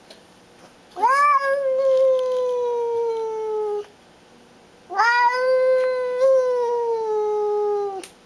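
Domestic cat yowling at another cat through a glass door: two long drawn-out yowls of about three seconds each, each sweeping up at the start, then holding and slowly falling in pitch. This is a territorial standoff call.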